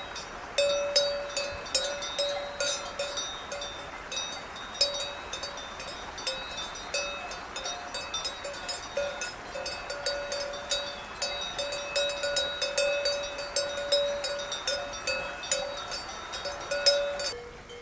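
A metal cowbell on a grazing cow's neck clanks irregularly, several strokes a second, each stroke ringing, as the cow moves its head to crop grass. Near the end it changes to a quieter, lower bell tone.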